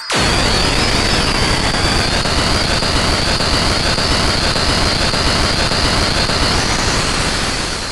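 Korg Volca FM synthesizer playing a noise patch through a Shift Line A+ Everest reverb/delay pedal: a loud wash of noise with a steady high whistle in it, starting suddenly and fading away near the end.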